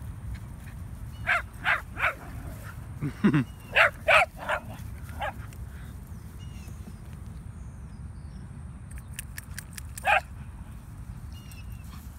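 Dogs barking in play: a quick run of about nine short barks in the first half, then a single bark near the end.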